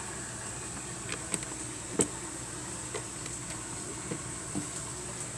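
Light plastic clicks and taps of Lego pieces being handled, a few scattered small ones and one sharper click about two seconds in, over a steady hiss with a faint high whine.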